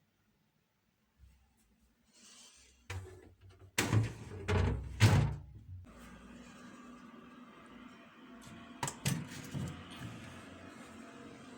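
Several heavy knocks and thumps, like a door or cupboard being handled, loudest about four to five seconds in. They are followed by a steady low hum with a few sharp clicks.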